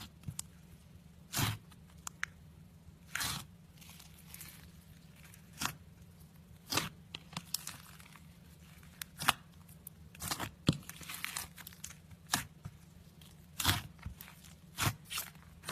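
Slime being squished, stretched and mixed by hand: irregular sticky pops and crackles, roughly one a second, some followed by short tearing smears. A steady low hum runs underneath.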